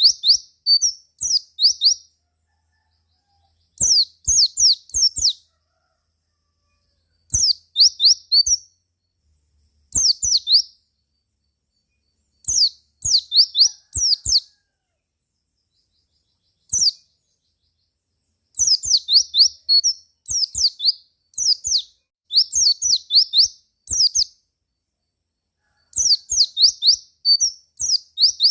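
White-eye (pleci) song: short phrases of rapid, high twittering notes, about nine in all, each a second or two long with brief silences between them.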